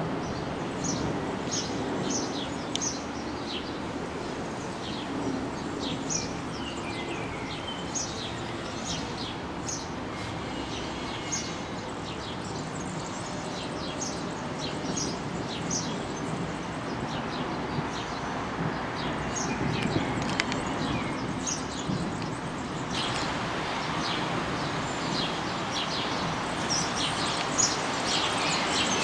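Small birds chirping in many short, repeated calls over a steady low rumble of outdoor background noise. The background grows a little louder about three-quarters of the way through.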